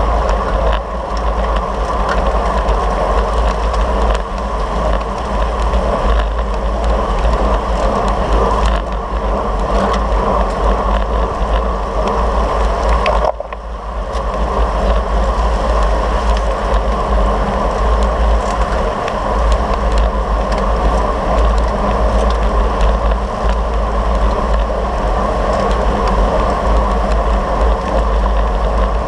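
Steady wind and road noise on the microphone of a camera riding with a pack of road bicycles, heaviest in the low end, with a short drop in level about halfway through.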